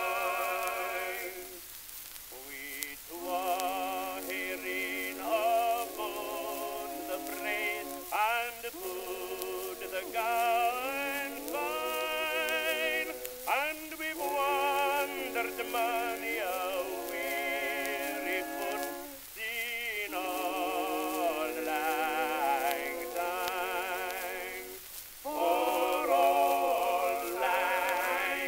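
Music from an old, narrow-sounding recording: a singer with heavy vibrato sings phrases separated by short breaks, over the hiss and crackle of a worn record surface.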